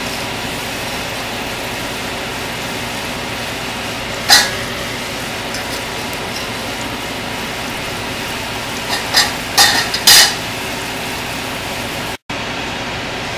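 Onion slices sizzling in hot oil in a metal pot, a steady hiss, while a metal spoon clinks and scrapes against the pot: once about four seconds in and several times around ten seconds, as the browned onion is lifted out. The sound cuts out briefly near the end.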